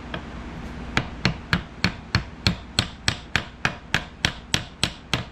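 Light, evenly spaced taps of an 8-ounce hammer on steel, about three to four a second, starting about a second in: the end of an Air Force survival knife is being gently peened over all the way around to lock its stacked-leather handle in place.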